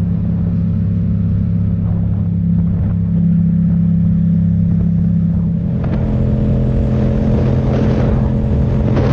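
Motorcycle engine running steadily at cruising speed on the open highway. About six seconds in its note shifts and more wind rush comes in.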